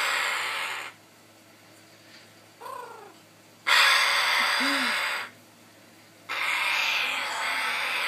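Parrot giving three long, harsh, breathy hisses, each lasting a second or more, with a short falling squeak in the gaps; the hisses come as two parrots meet face to face, typical of a wary or defensive display.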